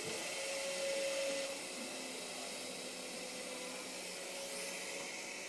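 Small electric drive motors of a wheeled robot-mower prototype whining steadily as it drives, the whine loudest in the first second or so and then fainter, over a constant hiss.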